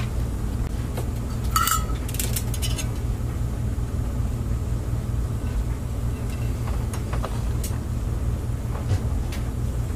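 Steady low rumble, with a brief metallic clink and a few sharp clicks about one and a half to three seconds in and a few light clicks later, from handling metal tools and parts while soldering a woofer's leads.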